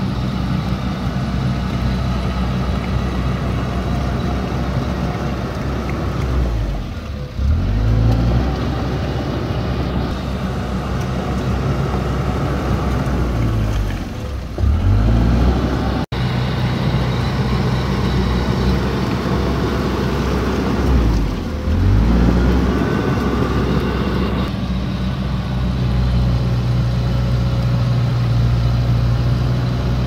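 Komatsu D31P bulldozer's diesel engine running steadily while working, its pitch dipping and climbing back three times, roughly every seven seconds.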